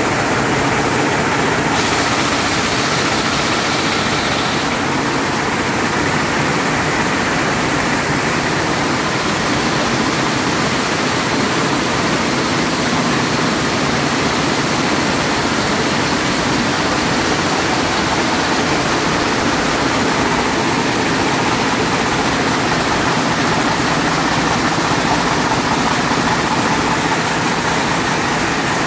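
Picanol air-jet weaving looms running at full speed, about 900 picks a minute, in a shed full of running looms: a loud, steady, dense clatter and hiss that does not let up.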